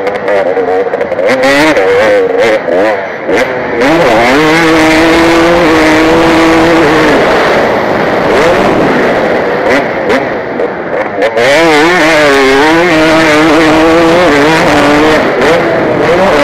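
KTM 250 motocross bike's engine revving up and down through the gears under race load, heard from a helmet camera, with its pitch held high for a few seconds at a time between dips.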